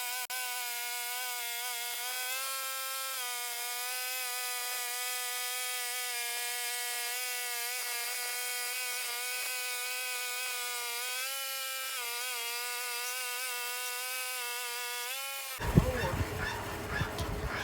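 Portable bandsaw sawmill running through a cut in a cedar log: a steady pitched whine that shifts slightly in pitch a few times, then cuts off suddenly near the end, followed by a loud knock.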